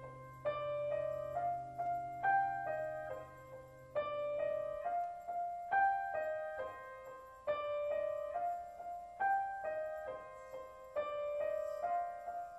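Background music: a soft piano playing a repeating figure of single notes that ring and fade, with a low steady hum underneath that stops about five seconds in.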